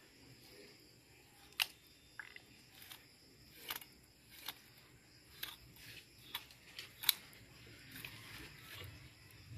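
Knife filleting a red devil cichlid on a plastic cutting board: a scattering of sharp, irregular clicks and crackles as the blade works between flesh and scaly skin. The loudest clicks come a little after a second and a half in and at about seven seconds.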